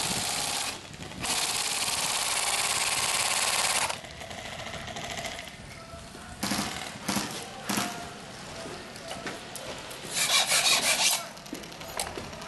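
M4-style airsoft electric rifle firing on full auto with a rapid rattle: two long bursts in the first four seconds, then a few short bursts, and a burst of about a second near the end.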